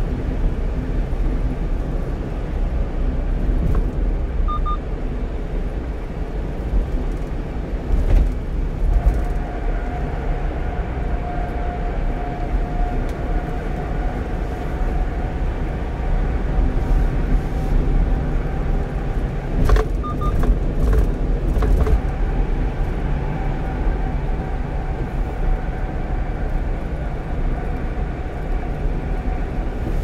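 A 1-ton truck driving at speed on an expressway: steady low engine and tyre rumble, with a steady whine joining about a third of the way in. A short electronic double beep sounds twice, and there are a few brief knocks.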